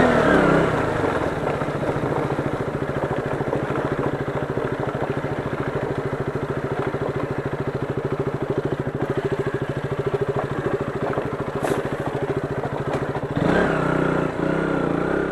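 KTM Duke 200's single-cylinder four-stroke engine running steadily at low revs as the motorcycle rides a rocky dirt trail, easing off from a rev at the start and getting louder again briefly near the end.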